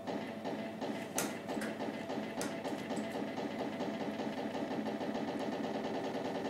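Novomatic Lord of the Ocean slot machine's rapid rattling count-up sound as the win meter tallies up, with a few sharper clicks in the first couple of seconds.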